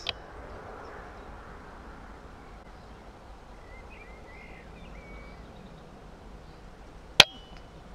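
Quiet outdoor background with a few faint bird chirps, then a single sharp crack about seven seconds in: a shot from a Weihrauch HW100KT pre-charged pneumatic air rifle.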